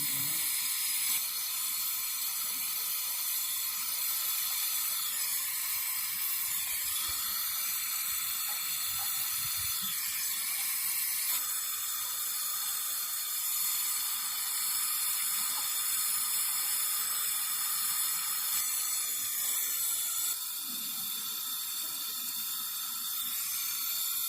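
Brazing torch flame hissing steadily as a steel-to-copper joint on a refrigerator's high-pressure line is brazed.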